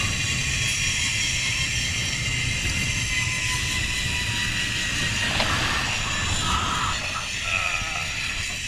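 Zip-line trolley pulleys running fast along the steel cable, a steady high whine, with heavy wind buffeting the harness-mounted camera's microphone. The sound eases slightly near the end.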